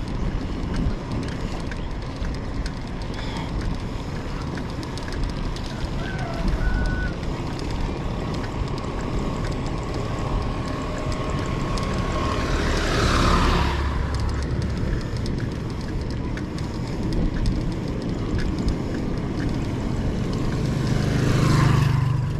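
Steady road and engine noise from a moving vehicle, with two other vehicles whooshing past, one about halfway through and one near the end.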